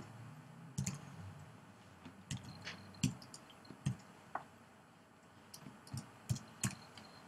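Computer keyboard keystrokes typed slowly: about a dozen light, separate clicks at uneven intervals.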